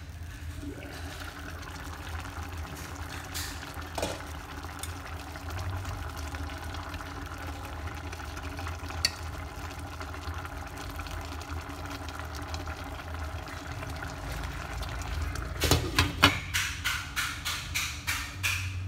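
Tofu and minced meat sauce simmering in a stainless steel pot, a steady low bubbling and hum. There is a single clink about four seconds in, and a quick run of about ten clinks against the pot near the end.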